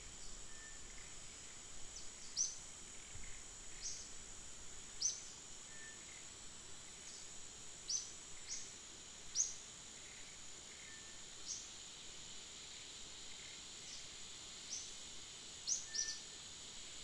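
Forest ambience: a steady high-pitched insect drone with short, sharp bird chirps that drop quickly in pitch, about a dozen at irregular intervals.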